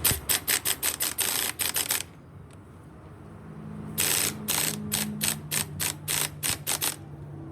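Ratchet wrench clicking in two runs of quick strokes, with a pause of about two seconds between them.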